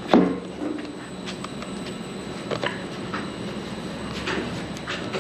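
Equipment and cases being handled: a sharp knock just as it begins, then a few fainter scattered knocks over a steady background hum.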